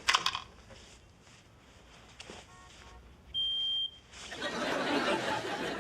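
A smoke detector gives one loud, steady, high-pitched beep lasting under a second, about halfway through. Studio audience laughter follows, and there are a few sharp clicks at the start.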